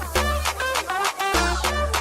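Upbeat music with a heavy bass line, a steady beat and a bouncing melody; the bass note changes a little over halfway through.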